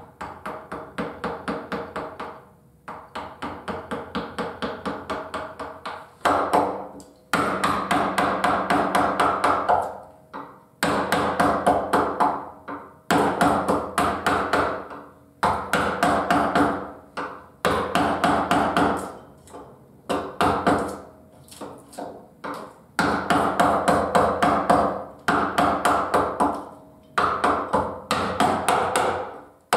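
Wooden carver's mallet tapping a carving gouge into cherry wood. The taps come quick and light, about four a second, in runs of two or three seconds with brief pauses between.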